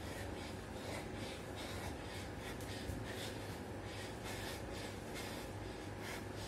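A man breathing hard and rhythmically from exertion during fast push-ups: short, hissy breaths through nose and mouth, about two a second.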